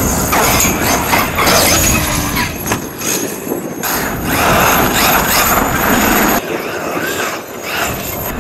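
Fifth-scale RC truck driving hard over gravel and grass, its drivetrain and tyres rising and falling in several bursts of throttle as gravel sprays from the wheels. It goes a little quieter about six and a half seconds in.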